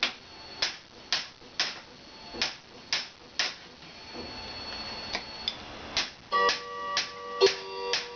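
Background music: a steady beat of sharp percussive clicks, about two a second, joined by sustained instrument notes about six seconds in.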